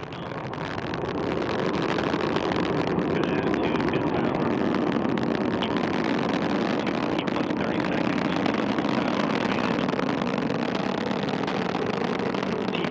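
Antares rocket's first-stage engines climbing away after liftoff: a steady, loud rushing noise with a crackle running through it, swelling over the first second or so and then holding.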